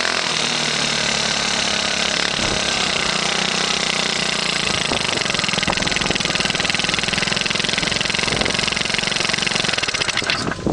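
Yamaha Choinori 50cc scooter's small single-cylinder four-stroke engine running through a Takimoto Works tw1 aftermarket muffler, at a steady speed after a small change in engine speed about two seconds in. It cuts off near the end.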